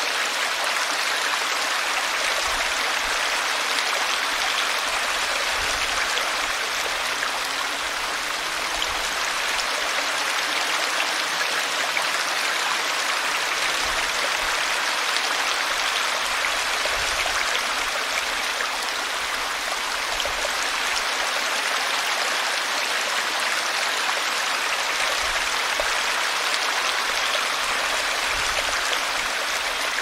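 Small forest brook babbling steadily: a gentle, even rushing and splashing of running water.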